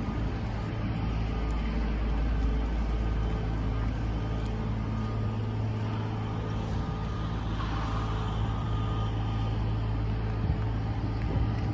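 Wind buffeting the microphone: a steady low rumble, with a steady low hum running underneath it.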